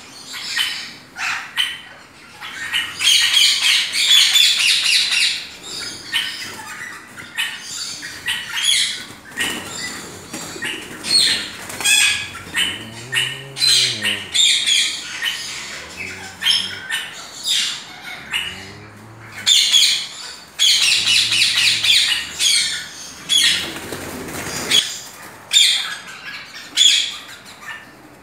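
Many caged parrots squawking, a dense, harsh, overlapping chorus of calls that swells loudest twice. Low rising-and-falling hoots come in a few times in the middle.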